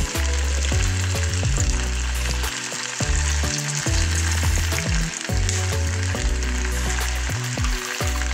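Spoonfuls of rice pakoda batter deep-frying in hot oil in a kadai, the oil sizzling steadily, with background music playing underneath.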